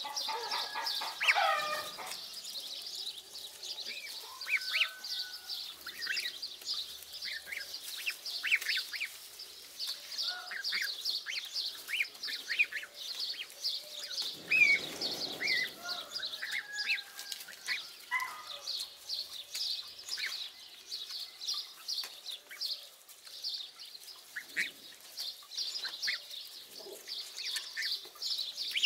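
African goose goslings peeping continuously as they feed, many short high peeps overlapping, with a few lower calls. A brief low noise comes about halfway through.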